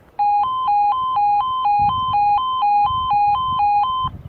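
E2S alarm sounder sounding a two-tone warning: a lower and a higher tone alternating about twice a second, cutting off suddenly near the end. It is the tone part of a talking train-approaching warning alarm.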